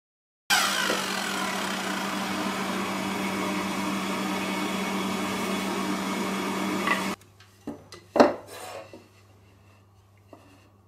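Electric miter saw motor starting up and running at speed while it cuts through a wooden board, a steady loud whine that cuts off suddenly. A few wooden knocks follow as the cut boards are handled and set down.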